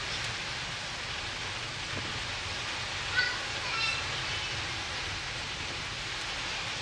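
Steady rushing noise with a low rumble underneath, like wind and water, with a few short high chirps a little after three seconds in.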